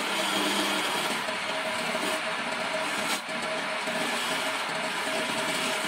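Homemade wood lathe running with its electric motor, a steady tone over the hiss of a flat chisel cutting a spinning wooden stair spindle. The cut lets up briefly a little past halfway.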